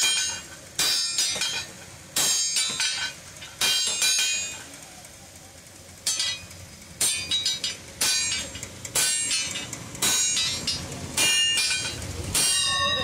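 Blacksmith's hand hammer striking iron on a small anvil while forging a chisel: about a dozen ringing clangs at uneven spacing, some in quick pairs, with a pause of a second or so a little after the middle.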